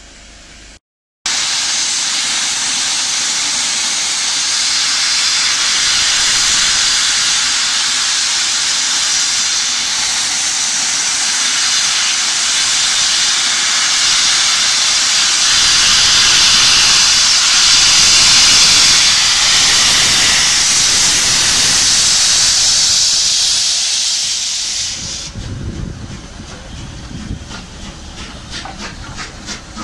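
Steam locomotive's cylinder drain cocks blowing off steam in a loud, steady hiss that cuts off abruptly near the end. It is followed by a run of regular beats as the locomotive moves slowly past.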